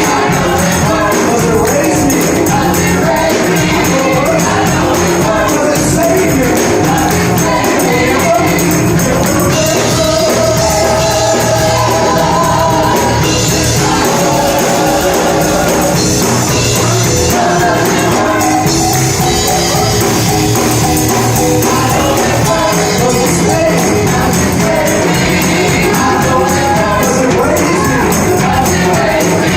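Live gospel worship music: voices singing together over a tambourine, loud and unbroken.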